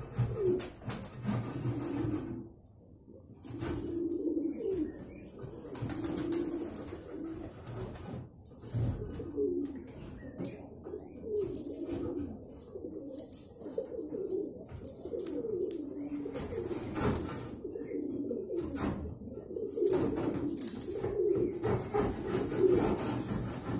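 A flock of domestic Andijan pigeons cooing, one low coo after another overlapping, with a short lull a few seconds in.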